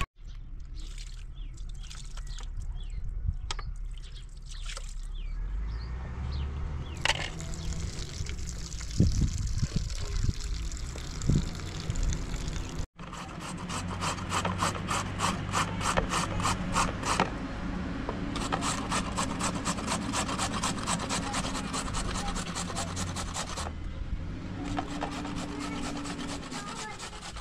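Carrots being grated on a handheld flat grater: a quick, even run of rasping strokes, with a brief break near the middle.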